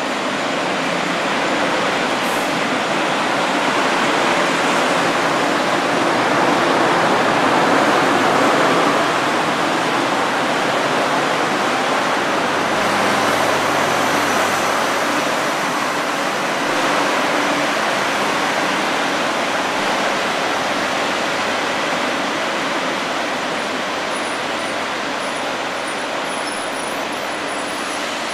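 Diesel multiple-unit commuter train running into an underground station platform and along it, engine and wheel noise building to its loudest about eight seconds in, then settling to a steady lower level. The sound echoes in the enclosed station.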